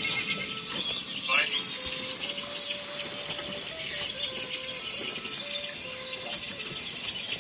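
Loud, steady chorus of shrilling insects that cuts in suddenly at the start and holds an even, high pitch throughout.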